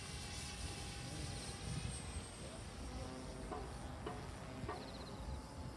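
Distant buzzing whine of an electric OXY 3 RC helicopter's motor and rotors as it flies high overhead.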